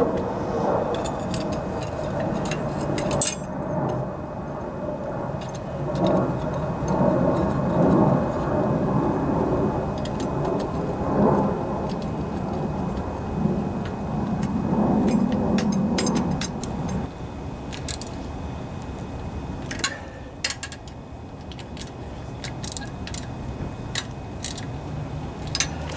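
Clinks, clicks and knocks of metal parts and hand tools being handled while a small engine is reassembled, over a steady low background noise.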